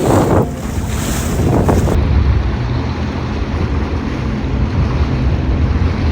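Jet ski engine running at speed over water, with wind buffeting the microphone. For the first two seconds it comes in surges of rushing water; then it settles into a steady drone.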